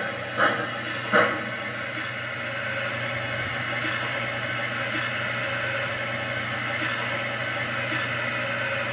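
Steady hiss of the idling steam sound played through the speaker of a 1:29-scale Union Pacific FEF-3 #844 model steam locomotive converted to MTH PS3 sound, standing still with its smoke unit running. Two short sharp sounds come in the first second and a half.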